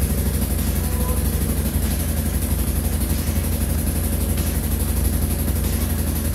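Yamaha Kodiak 450 ATV's single-cylinder four-stroke engine idling steadily and loudly.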